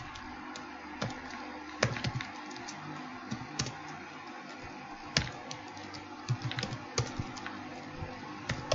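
Typing on a computer keyboard: separate keystrokes at uneven intervals, with a quick run of keystrokes about six seconds in, over a steady hiss.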